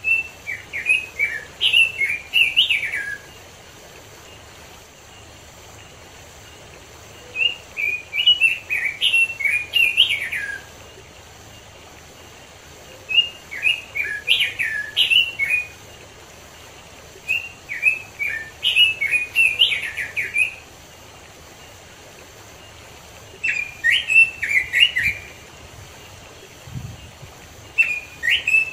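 Red-billed leiothrix (Pekin robin) singing: phrases of quick, rising and falling whistled notes, each about three seconds long, repeated every five to six seconds. A faint steady hiss of running stream water lies underneath.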